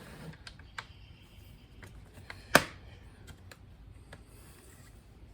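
Small plastic parts of a Shark Rocket stick vacuum's floor head being handled and fitted back together: scattered light clicks, and one sharp plastic snap about two and a half seconds in.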